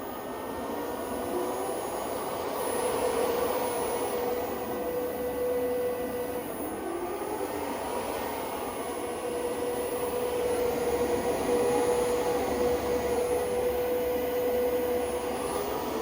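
SunSynk solar inverter's cooling fan running with a strange noise: a steady whine with fainter tones sliding up and down over it, on top of a whirring hiss.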